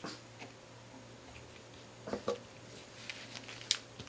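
A few light taps and clicks of small objects being handled, two soft ones about two seconds in and a sharper one near the end, over a faint steady low hum.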